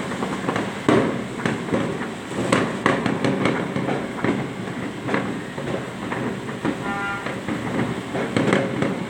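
Fireworks and firecrackers going off in a dense, irregular run of bangs and crackles. A short pitched tone sounds about seven seconds in.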